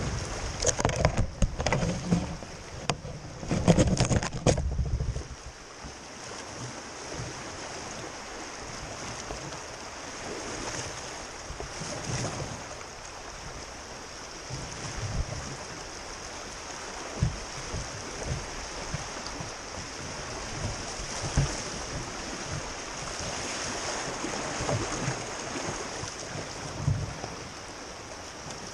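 Whitewater rapids rushing around an open canoe. For the first five seconds heavy splashing and buffeting hit the microphone, then the creek settles into an even rush with occasional low thumps.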